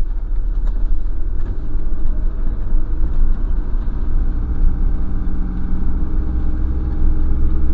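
Van engine and tyre rumble heard from inside the cab while driving slowly: a steady low drone.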